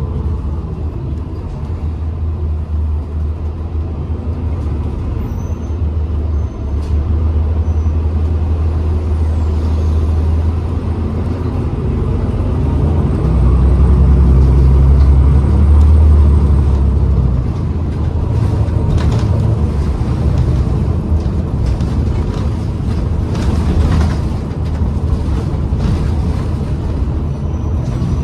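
New Flyer XDE40 diesel-electric hybrid bus running, its low engine drone swelling louder about halfway through and then easing. A few short air hisses, typical of the air brakes, come near the end.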